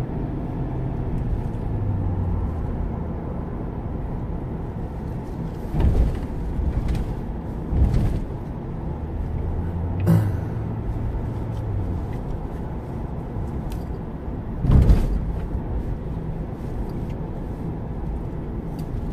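Car driving slowly through city traffic, heard from inside the cabin: a steady low engine and road hum. A few dull thumps break it, the loudest about fifteen seconds in.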